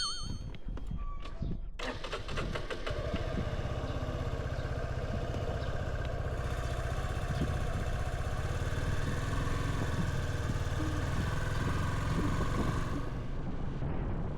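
Suzuki V-Strom 250SX motorcycle's single-cylinder engine running steadily, starting about two seconds in after a few clicks.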